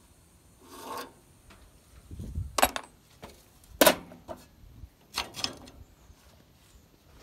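Handling noises on a Massey-Harris Pony tractor's sheet metal and controls. There is a brief rub about a second in, then a low thump and a few sharp knocks and scrapes, the loudest near the middle. The engine is not running.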